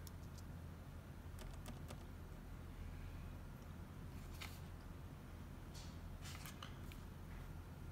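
A few scattered keystrokes on a laptop keyboard, single clicks spaced a second or more apart, over a low steady hum.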